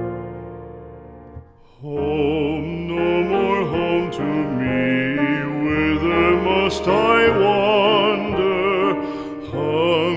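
Background music: a piano chord dies away, then about two seconds in a solo voice begins singing a slow song in classical style, with strong vibrato, over piano accompaniment.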